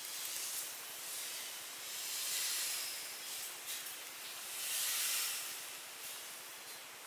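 A hissing noise that swells and fades twice, with a few faint clicks.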